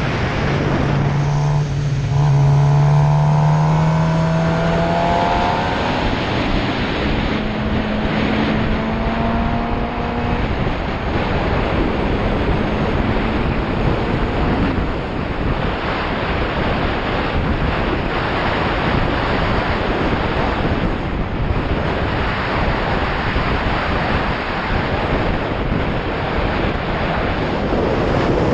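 Loud, steady wind noise buffeting the built-in microphone of a GoPro Hero4 Session action camera, a rough rushing rumble. About a second in, a low droning tone with overtones joins it for a few seconds, then carries on fainter until about halfway.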